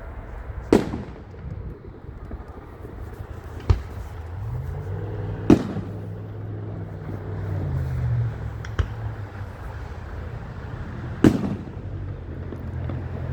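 Fireworks bursting: five sharp booms a few seconds apart, each trailing off in a short echo. A low steady hum swells underneath through the middle.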